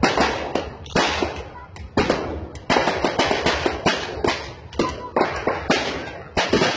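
Fireworks and firecrackers going off in a rapid, irregular string of sharp bangs, several a second, each trailing off briefly.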